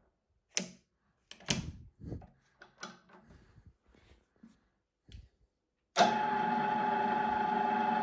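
A few scattered clicks and knocks, then about six seconds in the IMA IG 30-8 geared-head drill press starts suddenly and runs steadily with a high, even gear whine.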